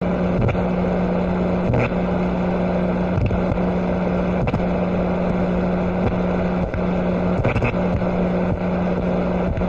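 An engine running steadily: a loud low hum over a rushing noise, dipping briefly every second or so.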